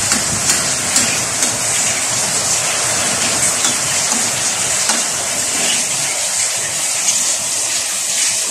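Steady hiss of heavy rain mixed with onions, garlic and mushrooms sizzling in a frying pan, with a few faint ticks from the spatula.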